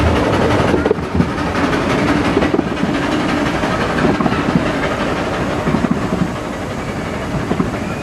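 Carriages of a 15-inch gauge miniature train rolling past and away, wheels clattering irregularly over the rails, the sound slowly fading.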